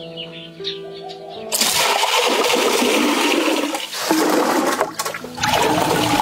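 Music with steady notes, then about a second and a half in a loud rush of water starts suddenly, like water pouring or splashing. It breaks off briefly near the end and starts again.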